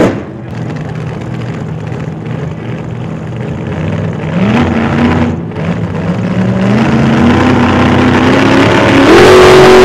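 Car engine running and accelerating, its pitch climbing in steps about four and a half, seven and nine seconds in, getting louder toward the end. A sharp knock comes right at the start.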